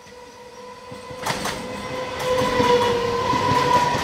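Electric multiple-unit local train passing close by at speed. Its wheels clatter over the rail joints from about a second in and grow louder as the coaches go by, over a long, steady horn-like tone.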